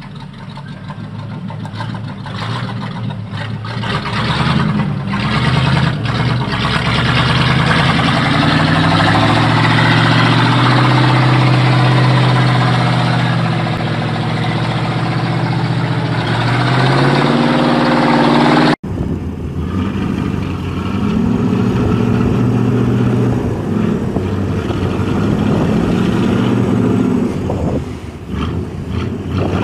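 Heavy off-road truck's engine working hard as the loaded truck climbs a muddy track, revving up over the first several seconds, holding high, then easing off. After an abrupt cut about two-thirds through, another truck's engine runs and revs.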